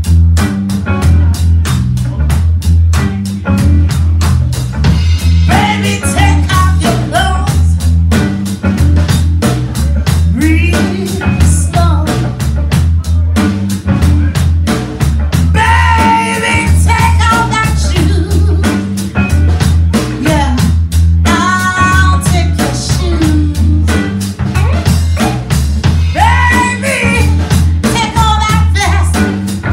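Live blues band playing: a woman singing over electric bass, drum kit and electric guitar, with a steady beat and a strong pulsing bass line. The vocal comes in about five seconds in and returns in phrases.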